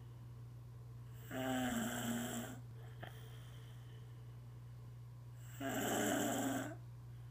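Snoring: two long, rasping snores about four seconds apart, each lasting a little over a second, over a steady low hum.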